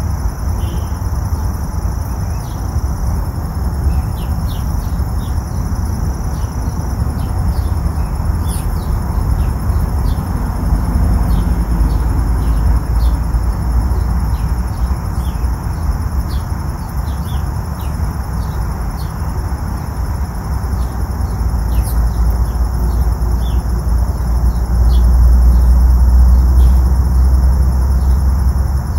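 Insects chirping in short, irregular bursts over a strong, steady low rumble that swells near the end.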